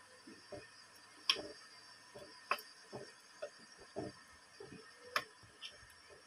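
Metal spoon clinking and scraping against a small steel bowl while ground spices, garlic and ginger are stirred with water into a paste: a dozen or so light, irregular clinks.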